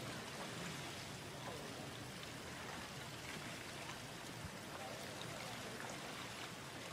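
Faint, steady rush of water, with a few light ticks.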